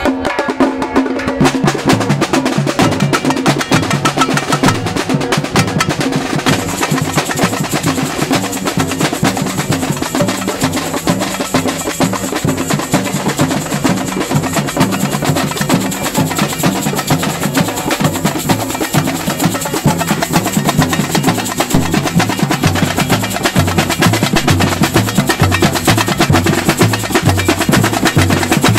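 Samba batucada drum ensemble playing a steady groove: surdo bass drums beating a repeating low pattern under snare drums. A metal shaker joins about six and a half seconds in.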